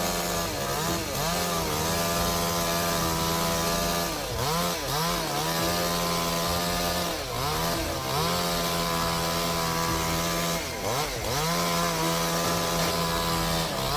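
Chainsaw engine running near full throttle, its pitch dropping briefly and climbing back several times as it is eased off and opened up again.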